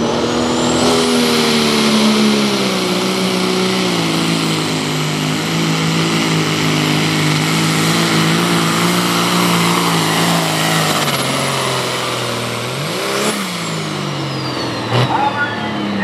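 Turbocharged diesel engine of a Case Limited Pro/Super Farm pulling tractor running flat out under load as it pulls the sled, with a high turbo whistle over it. The engine pitch sags in steps as the load builds. About thirteen seconds in, the engine revs up and drops once and the turbo whistle winds down.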